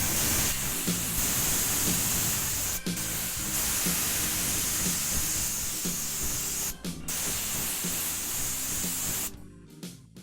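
Steady hiss of a pressurised spray in long passes, broken off briefly twice and stopping about a second before the end, with background music underneath.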